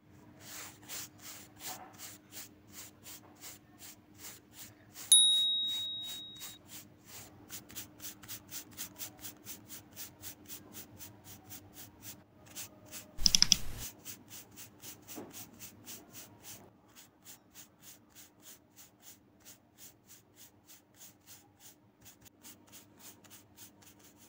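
Paintbrush scrubbing black paint onto a canvas in quick back-and-forth strokes, about three a second, over a faint steady hum. A bright ding rings out about five seconds in, and a loud knock comes about thirteen seconds in.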